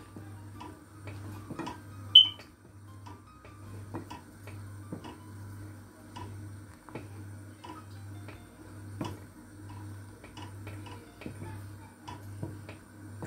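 A wooden spatula stirs milk simmering and reducing in a saucepan, with scattered soft clicks and taps against the pan and one sharper click about two seconds in, over a low pulsing hum. The milk is being boiled down for palkova and stirred constantly so it doesn't catch on the bottom.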